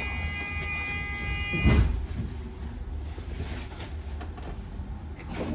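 Low, steady rumble of a double-decker bus heard from inside the passenger deck. A steady pitched tone runs until almost two seconds in, where it stops with a loud knock, and a smaller click comes near the end.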